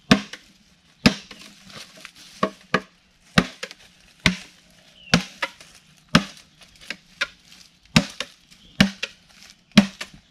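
Machete chopping into a thick green bamboo culm to cut through it, about a dozen sharp strikes at roughly one a second.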